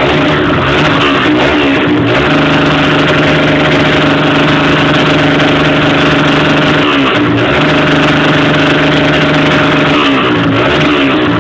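Honda CG 150's single-cylinder four-stroke engine running loud through an aftermarket rumble exhaust, held at a steady raised speed for several seconds at a time. The note dips and comes back up about two seconds in, again around seven seconds, and near the end.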